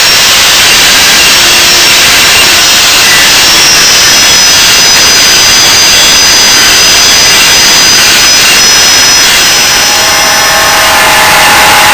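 Belt sander grinding the flat of a leaf-spring steel knife blank: a loud, steady rushing noise with a thin high whine that comes back about three seconds in, and a lower tone joining near the end.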